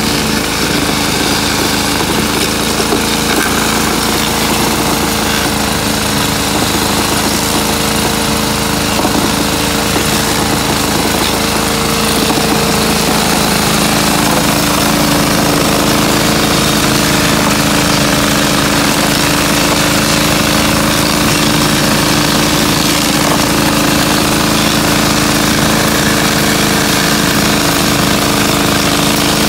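Handheld power tampers running steadily as they pack ballast stone down under concrete sleepers at a railway switch, a continuous mechanical drone. Its pitch drops a little about halfway through.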